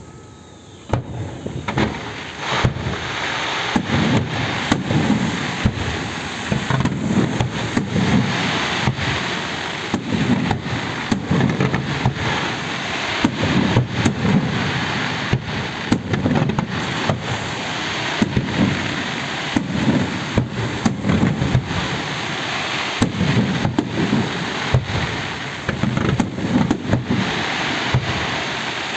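Fireworks display in full barrage: a dense run of sharp bangs and deep booms over continuous crackling, starting abruptly about a second in.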